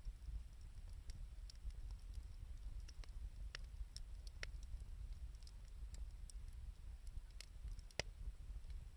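Wood fire of reused 2×4 lumber and scrap wood crackling, with irregular sharp pops and snaps, the loudest about eight seconds in, over a low steady rumble.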